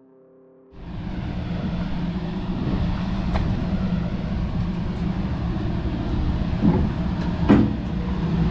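Steady low rumble of a moving vehicle, starting under a second in after near silence, with a few short knocks; the loudest comes near the end.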